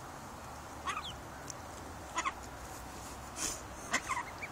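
Mallard ducklings peeping: short high chirps, a single one about a second in, a quick pair just after two seconds and a few more near the end.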